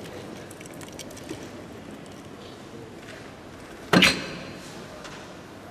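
A soft-tip dart hits the electronic dartboard about four seconds in: one sharp, loud hit with a short decay as the machine registers a single 14. Low hall murmur runs beneath it.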